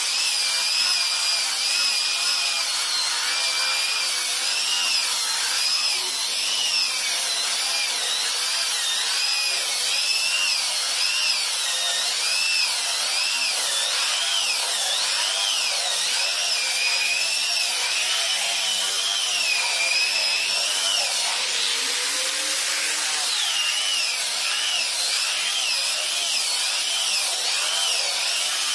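Electric angle grinder with a sanding disc running without a break, sanding the face of a wooden board. Its high motor whine wavers up and down in pitch as it is worked across the wood, over the steady hiss of the disc on the grain.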